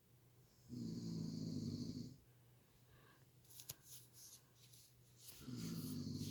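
A sleeping person snoring: two long snores, each about a second and a half, roughly four and a half seconds apart, with softer breathy noises and small clicks between them.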